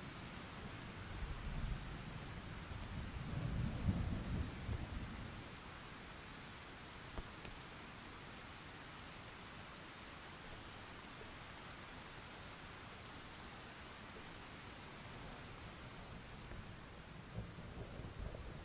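Thunderstorm: steady rain hiss, with a low rumble of thunder rolling through the first few seconds and another rumble building near the end.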